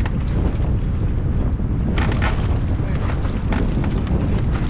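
Wind buffeting the microphone in a steady low rumble, with two short bursts of splashing about two seconds in and again a second and a half later.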